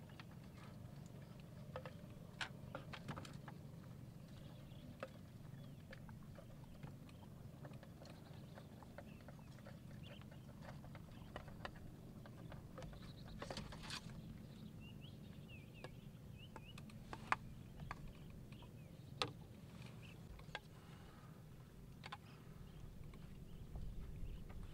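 Scattered clicks and scrapes of a ladle against a clay pot and a small bowl as cooked rice is served out, over a steady low hum.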